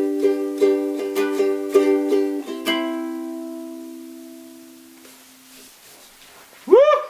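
Córdoba ukulele strummed in a quick rhythm, ending on a final chord that rings out and fades over a few seconds. Near the end a short cry rises and falls in pitch.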